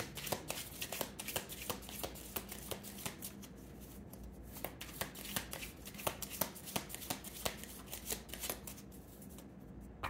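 A tarot deck being shuffled by hand: a quick, uneven run of crisp card clicks that stops near the end.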